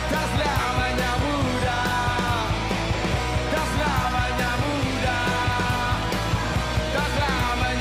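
Rock band music: electric guitars and bass over a steady drum beat, with a melodic line that bends and glides above them.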